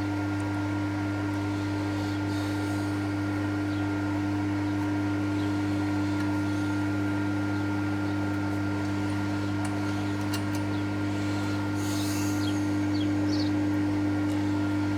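Milling machine motor running steadily with a constant hum, with a few light clicks and scrapes about ten and twelve seconds in.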